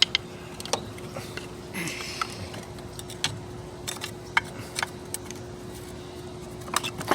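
Screwdrivers clicking and scraping against a transmission case as a cover is pried loose: scattered sharp metal clicks and taps over a steady faint hum.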